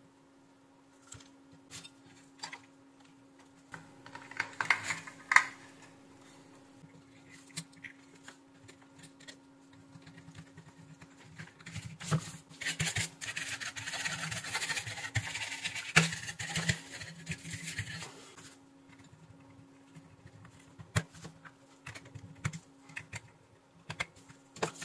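Workbench handling noises from a switch-mode power supply being worked on: scattered clicks and taps of the board, metal case and tools, a quick cluster of clicks around five seconds in, and a few seconds of continuous scraping and rustling in the middle, over a faint steady hum.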